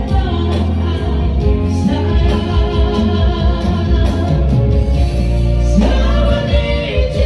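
Male vocal trio singing into microphones, backed by a Yamaha electronic keyboard with a steady bass line.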